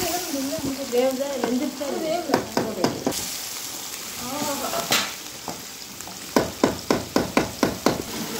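Chicken varuval in thick masala being stirred with a perforated metal ladle in a wide metal pot, the ladle scraping and knocking against the pot. Near the end comes a quick run of about eight sharp knocks, several a second.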